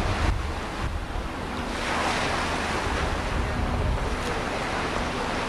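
Harbor water washing and lapping in the wind, with wind rumbling on the microphone that eases early on into a steady hiss of wind and water from about two seconds in.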